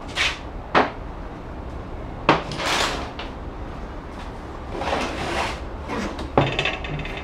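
Scraping and knocking of a Mitsubishi Fuso Canter four-speed automatic transmission case being shifted and turned over on a workbench. Several sharp knocks, two stretches of scraping, then a hard clank and a brief rattle near the end.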